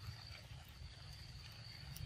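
Faint soft smacking and clicking of a young macaque chewing ripe mango, over a steady high-pitched insect whine that drops out briefly partway through, with a low rumble beneath.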